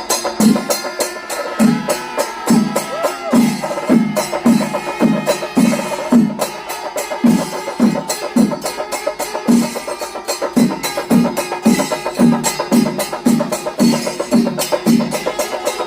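Chenda melam, the Kerala temple drum ensemble, playing: deep chenda strokes about twice a second under a dense, fast clatter of sticks and cymbals, with a wavering held tone briefly above it a few seconds in.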